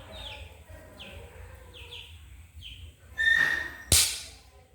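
A chick peeping over and over, each peep a short falling note. About three seconds in a loud, harsh cry breaks in, followed by a sharp knock that is the loudest sound.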